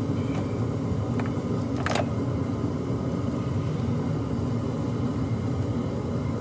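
2008 Ford F-350's 6.4-litre Power Stroke V8 diesel idling steadily just after its turbo was replaced, running without trouble. A brief click about two seconds in.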